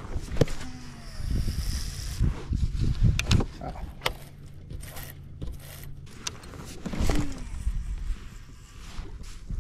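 Fishing gear being handled in a kayak: scattered clicks, knocks and light rattles, with dull thumps clustered in the first few seconds.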